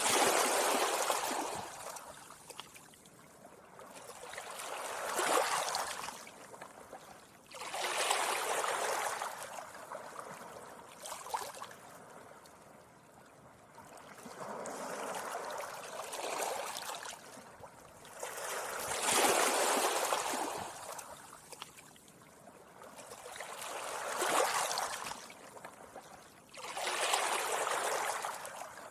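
Gentle sea waves washing up a beach, each one a rising and falling surge of wash and fizz, about one every four to five seconds.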